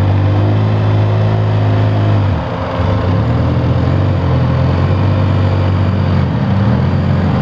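Polaris ATV engine revving under load as the quad crawls over fallen logs. The engine note dips briefly about two seconds in, then picks up again and rises and falls with the throttle.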